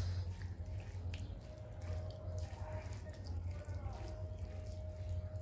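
Fingers mixing dal into boiled basmati rice on a metal plate, soft wet squelching with small irregular clicks and ticks. A steady low hum runs underneath.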